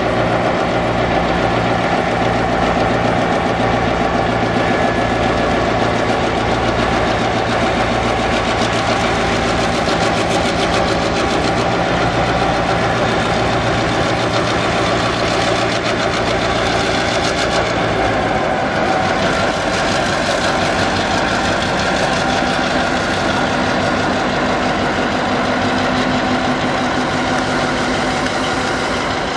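Diesel engine of a four-axle diesel-electric road-switcher locomotive running steadily with a low, pulsing throb as it works slowly through a rail yard. A little past halfway through, the engine note changes.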